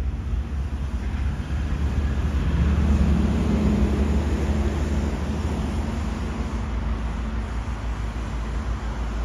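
Diesel engine of A class diesel-electric locomotive A62 running under power as it approaches hauling a passenger train: a steady low rumble with a hum that swells about three seconds in and then holds.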